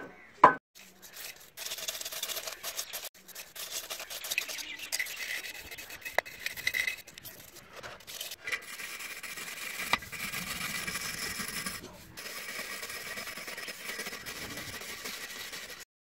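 Hand scraper scraping peeling paint off the pedestal fan's sheet-metal motor housing in repeated rasping strokes. It follows two sharp knocks at the start, which are the loudest sounds.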